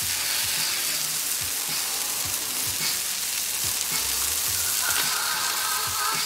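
Beef smash burger patties and sliced onions frying on a Royal Gourmet 36-inch flat-top griddle: a steady sizzle with scattered crackling pops.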